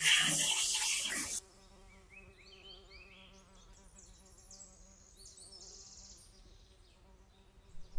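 Compressed air hissing from a blow gun as it blasts over a cleaned motorcycle crankshaft and crankcase parts, cutting off sharply about a second and a half in. Only faint high chirps follow.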